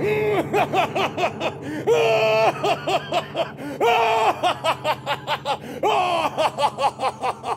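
A man's loud, theatrical villain's laugh for a gloating giant: quick runs of "ha-ha-ha" broken by three long, drawn-out laughs about two, four and six seconds in.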